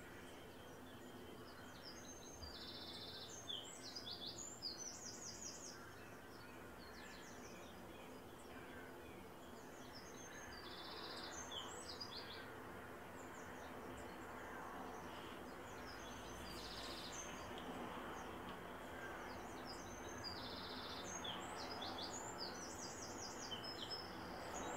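A small songbird singing short phrases of rapid, high trilled notes, repeated every few seconds over a faint, steady background hum.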